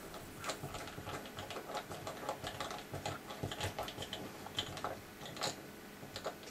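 Precision T9 Torx screwdriver turning a tiny screw into a Nokia Lumia 820's plastic inner casing: a quick, uneven run of small clicks and ticks, a few louder ones in the second half.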